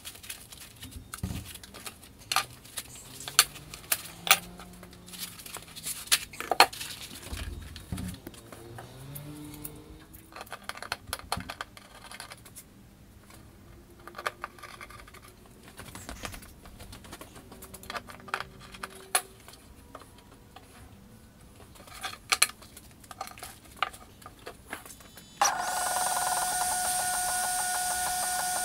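Small metal parts and screws clicking, clinking and knocking on a workbench while a laser cutting platform is assembled with a screwdriver. Near the end a steady machine whine with a few fixed high tones starts abruptly: the diode laser engraver running.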